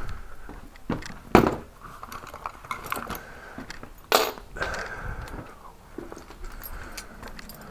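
Scattered metallic clicks and knocks from hand tools and lock parts during lock-changing work, with two sharper knocks, one about a second and a half in and a louder one about four seconds in.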